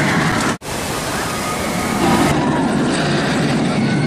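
Intamin stand-up roller coaster train running along its steel track: a steady rushing roar with thin high tones drifting over it. The sound drops out for an instant about half a second in.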